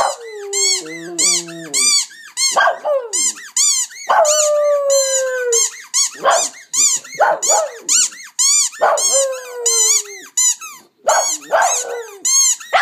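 West Highland White Terrier howling, with long wavering howls that fall in pitch mixed with rapid high yips and short barks.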